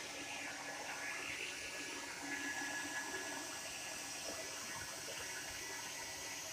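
Handheld hair dryer running steadily on the dog's wet coat: an even rush of air with a thin steady whine over it.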